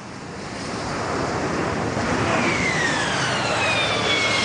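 AV-8B Harrier's Pegasus jet engine running hard as the jet settles onto the runway in a vertical landing, growing louder over the first two seconds. From about halfway, a high whine falls in pitch as the engine spools down after touchdown.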